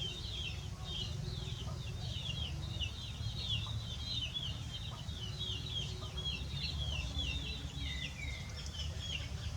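Birds chirping: a quick, continuous run of short, high, downward-sliding chirps, several a second, over a low steady rumble.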